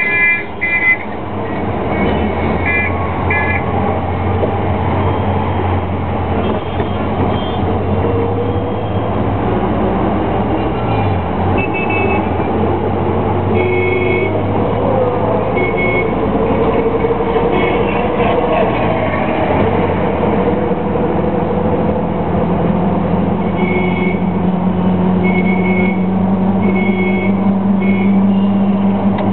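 City traffic heard from inside a moving taxi: the cab's engine and road noise run steadily, with a low hum that climbs in pitch in the last few seconds. Other vehicles' horns honk in short beeps several times along the way.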